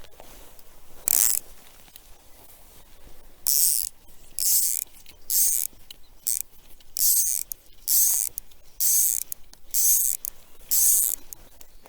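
Fly reel's click-and-pawl drag rattling in short bursts as line is pulled off it, about nine pulls, most of them roughly a second apart.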